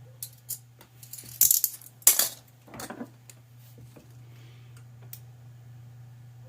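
Small tools and parts being handled on a workbench during e-bike wiring: a run of clinks, clatter and rustling, the loudest two about a second and a half and two seconds in, over a steady low hum.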